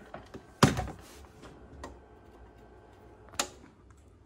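Hands handling computer hardware and cables: a few light clicks and taps, a louder thunk under a second in, and another sharp knock a little after three seconds.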